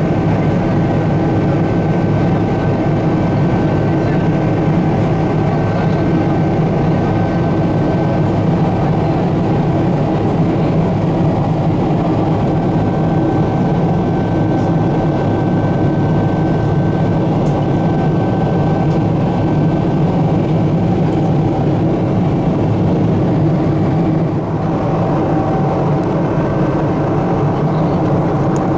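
Steady drone of engine and airflow noise heard inside the cabin of a Boeing 777 airliner climbing out after takeoff, with a faint high whine that fades in and out.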